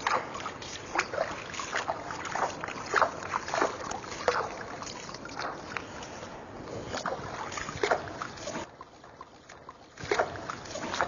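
Water splashing and sloshing as a foot is washed by hand during wudu, in many short, irregular splashes. It goes quieter about three-quarters of the way through, with a few more splashes near the end.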